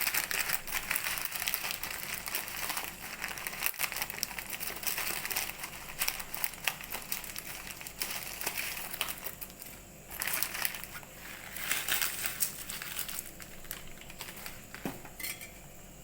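Plastic instant-noodle (Maggi) packets crinkling and crackling as they are torn open and handled, in irregular bursts that thin out toward the end.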